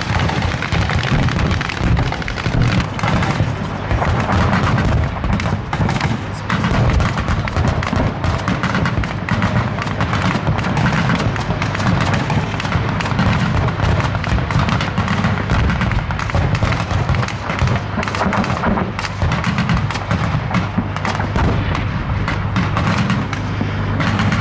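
Rapid cannon fire from infantry fighting vehicles, their 30 mm and 25 mm autocannons: many shots in quick succession, overlapping into a dense crackle with heavy low thuds.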